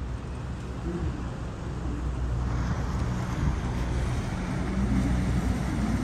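Motor of an open canal tour boat running steadily, a low hum that grows gradually louder, with wind rumbling on the microphone.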